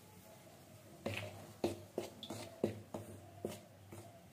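A metal utensil knocking and scraping against a stainless steel bowl, about two strokes a second starting about a second in, as hot oil is stirred into murukku flour.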